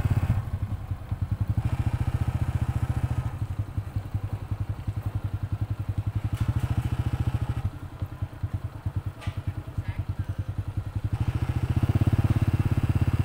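Small motorbike engine running at low speed, heard from the rider's seat as a steady low putter. It eases off through the middle and gets louder again near the end.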